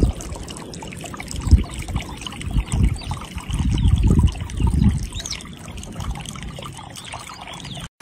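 A small stream trickling and gurgling, with irregular low rumbling surges and faint high chirps over it.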